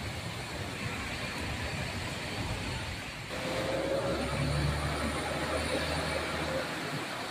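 Heavy rain falling with a steady hiss. About three seconds in, a vehicle passes, adding a low engine hum and a faint rising whine.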